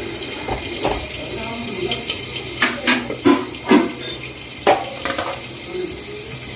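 Rice and water boiling in an aluminium pot, a steady bubbling hiss. A spoon stirs the pot, and several sharp clinks of the spoon against the pot come a few seconds in.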